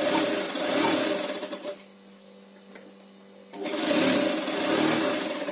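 Brother sewing machine stitching through folded saree fall fabric in two short runs, the first for nearly two seconds and the second starting about three and a half seconds in. A steady motor hum carries on between the runs.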